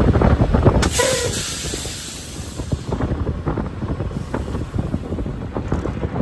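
Wind buffeting the microphone: a gusty low rumble that eases about two seconds in and builds again near the end. A short faint tone sounds about a second in.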